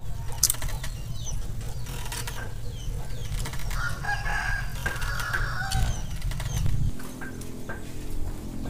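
A rooster crowing once, a call of about a second and a half, with short high bird chirps around it and a steady low rumble that drops away about seven seconds in.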